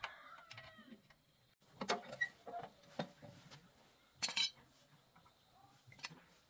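A few scattered metallic clinks and taps of loose steel parts being picked up and set down on concrete, the loudest a quick rattle about four seconds in.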